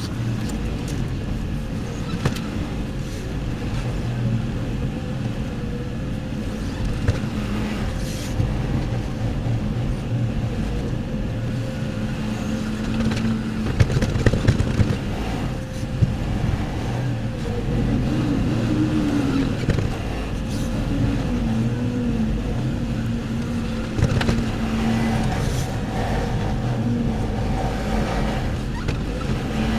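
Tractor engine running steadily under load, its revs rising and falling twice near the middle, with a cluster of knocks about halfway through, while it loads a muck spreader.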